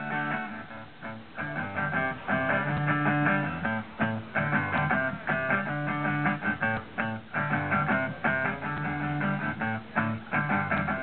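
Guitar strumming a repeating chord pattern during an instrumental break in a song.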